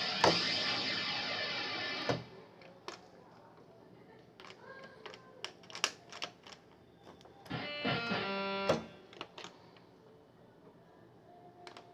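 Korg X3 synthesizer playing General MIDI bank sounds: a loud, dense held sound that cuts off about two seconds in, then scattered clicks and a short held chord of about a second near eight seconds in.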